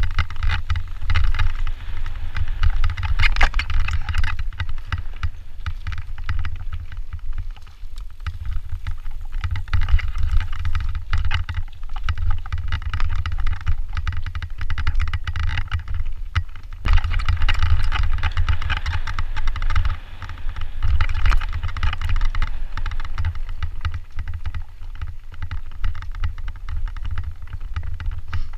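Mountain bike riding fast down a rough gravel and stone singletrack, heard from a camera mounted on the handlebar: tyres crunching over the trail and the bike and mount rattling, over a heavy wind rumble on the microphone.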